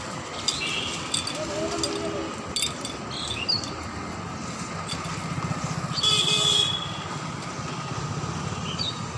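Street noise: a steady hum, a motor vehicle engine passing from about four to eight seconds in, a short sharp hiss about six seconds in, and a few light clinks near the start.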